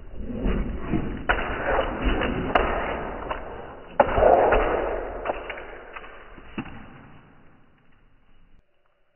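Muffled knocks and thumps from a Boston terrier puppy running and scrambling across a hard floor while playing fetch. A sharp, louder thump comes about four seconds in, and the sound fades out near the end.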